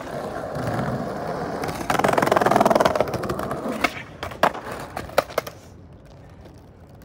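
Skateboard wheels rolling on rough asphalt, louder about two seconds in, then a sharp clack about four seconds in and a few more clatters as the flipped board hits the ground loose: a missed trick, the skater not riding away.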